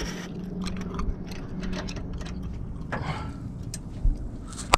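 Wrench working on the steel leveling-valve linkage of a truck's air suspension: a string of small metal clicks and taps over a steady low hum, with a dull thump about four seconds in and a sharper knock near the end.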